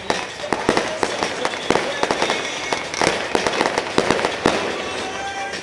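Fireworks display: shells bursting in rapid succession, several sharp bangs a second, thickest about halfway through and again near the end.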